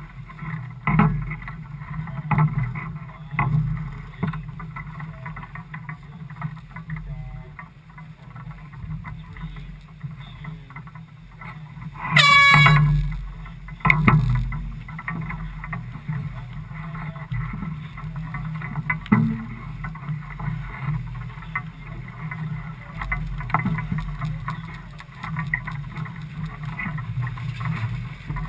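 One short blast of a race committee's air horn about halfway through, lasting under a second: the sound signal that goes with a flag change in a match-racing start sequence. It plays over a steady low rumble of wind and boat noise, with a few knocks on deck.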